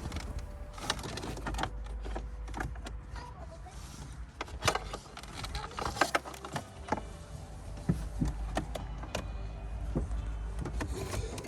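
Irregular clicks, knocks and rattles of cables and plastic dashboard parts being handled as USB leads are fed through the dash, over a steady low rumble.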